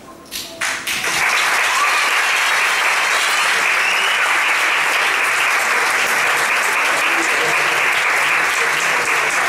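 Audience applauding: a few scattered first claps, then full, steady applause from about a second in.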